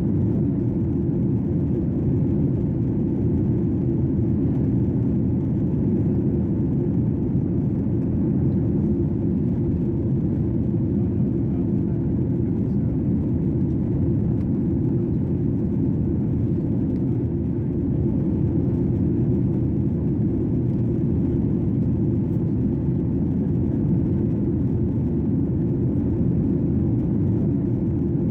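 Steady airplane cabin noise in flight: an even, deep rushing hum that does not change.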